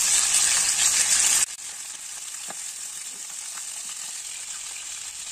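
Chicken pieces frying in hot oil in a wok, a steady sizzle with a few faint crackles. The sizzle drops abruptly to a quieter level about one and a half seconds in.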